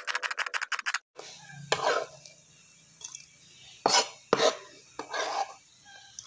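Rapid, even chopping of a kitchen knife through lemongrass on a cutting board, which stops about a second in. Then a few separate knocks and scrapes as the knife and hand push the sliced lemongrass off the board into a bowl.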